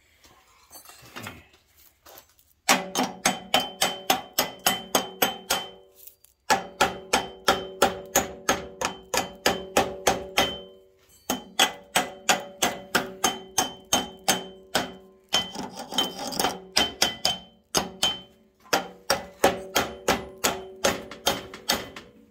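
A hammer beats rapidly on a square steel tube tacked to a steel base plate, at about three to four blows a second. The blows come in five runs with short pauses between them, and the steel rings on after each blow.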